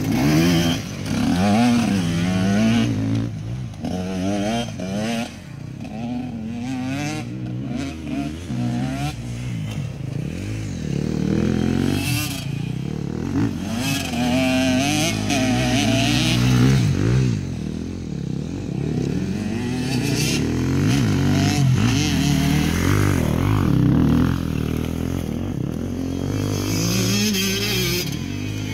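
Two enduro dirt bikes, a KTM XC-W 125 two-stroke and an EXC-F 250 four-stroke, revving up and down over and over as the riders open and close the throttle through tight turns.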